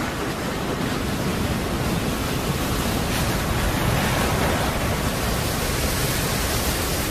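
A large wave breaking over a shallow reef: a steady rush of surf and white water that swells slightly about four seconds in.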